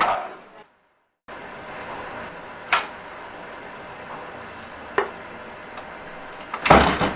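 Door being opened near the end, a louder knock-like latch-and-door sound, after two single sharp clicks over a steady room hiss.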